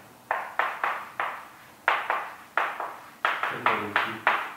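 Chalk writing on a blackboard: a quick series of sharp taps and short scrapes, about two to three strokes a second.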